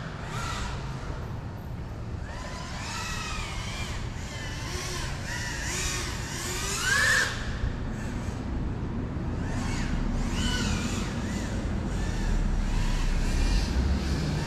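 GEPRC CineLog35 ducted FPV drone flying, its propeller whine rising and falling in pitch as the throttle changes, with a sharper rise about seven seconds in. A steady low rumble runs underneath.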